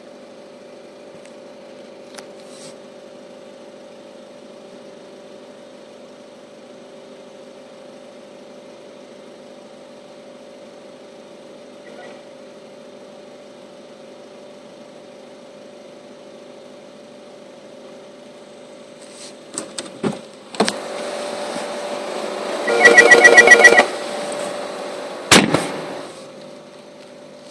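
A steady electric hum, then several sharp knocks and a loud, rapidly pulsing buzzer for about a second and a half, followed by one more sharp knock.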